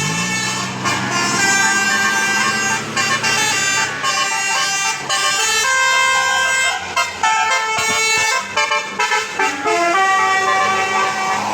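Bus 'telolet' musical air horn (Basuri type) playing a quick tune of short stepped notes that jump up and down in pitch.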